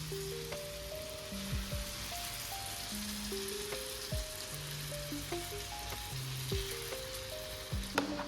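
Food sizzling as it fries in a pan, a steady hiss under background music.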